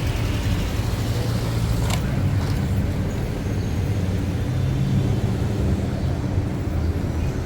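City street traffic: a steady low rumble of car and bus engines, with a single sharp click or knock about two seconds in.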